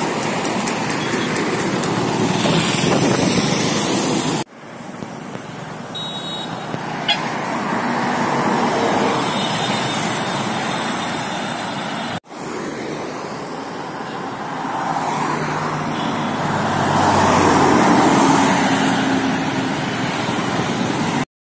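Highway traffic passing close by: trucks, coaches, cars and motorbikes, with engine and tyre noise. It swells near the end as a vehicle passes, and the sound breaks off abruptly twice.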